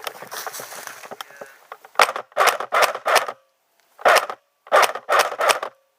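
Airsoft guns firing: a quick string of four sharp shots about two seconds in, then another four near the end. Before them, rustling of movement.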